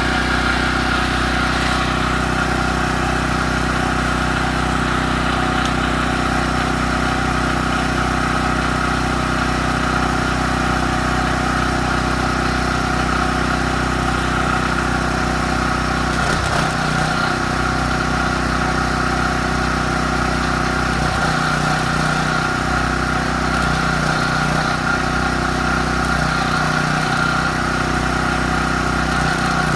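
An engine running steadily at idle, with a low, even hum and a slight change in its low tones about sixteen seconds in.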